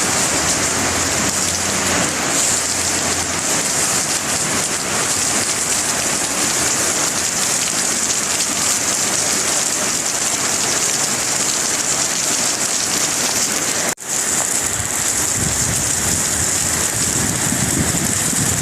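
Heavy rain falling hard, a loud, even hiss. It cuts out for an instant about fourteen seconds in.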